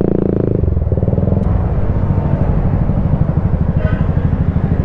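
Yamaha TMAX 560 maxi-scooter's parallel-twin engine running with a steady low throb while riding at low speed.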